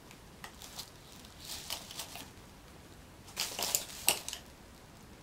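Hands rummaging through packaging and small cosmetic tubes: light rustling and clicking in three short spells.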